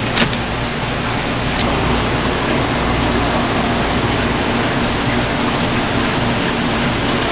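Steady rush of running water with a faint low steady tone under it.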